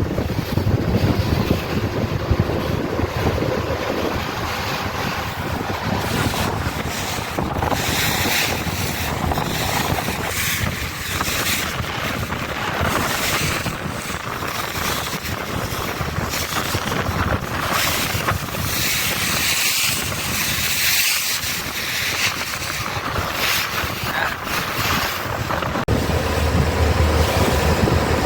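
Wind gusting across the microphone over a steady rush of sea water, swelling and easing in waves.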